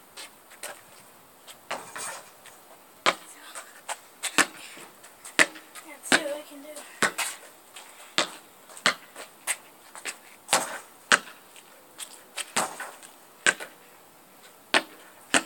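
A series of sharp knocks at irregular intervals, about one or two a second.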